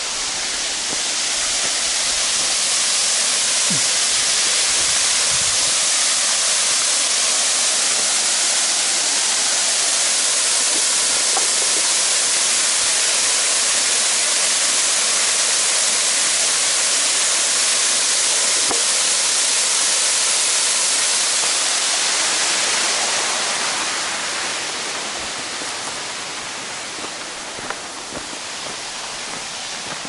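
Rushing water, a steady hiss that swells up about a second in, holds, and fades away near the end, as when walking past a cascade.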